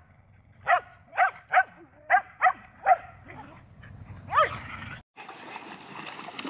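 A collie-type dog barking in a run of short, sharp, high yips, about seven in four seconds. About five seconds in, it cuts off abruptly and a steady hiss of running water follows.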